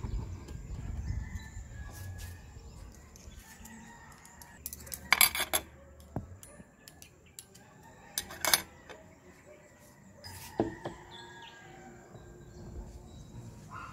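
Metal cutlery and ceramic mugs clinking against plates and the tabletop as breakfast is laid out, in two loud clusters of sharp clinks about five and eight and a half seconds in and a lighter one near ten seconds. Distant birds call faintly in the background.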